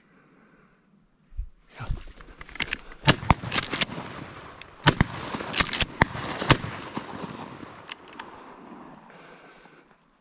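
A volley of shotgun blasts from several hunters firing at flushing ducks: about half a dozen sharp shots in quick succession over a dense rushing noise that builds about two seconds in and fades near the end.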